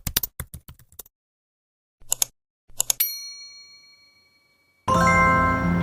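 Quick keyboard typing clicks, then a pause and two short bursts of typing, followed by a single bell-like ding that rings out and fades over about a second and a half. Soft music comes in near the end.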